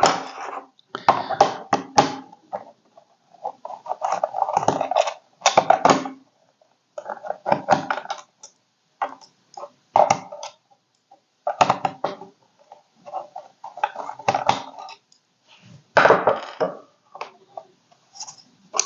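Hand work on the Gotek floppy emulator's plastic case: a small screwdriver backing out the case screws, with intermittent scrapes, clicks and small clattering taps of screws and plastic, coming in short bursts with brief pauses.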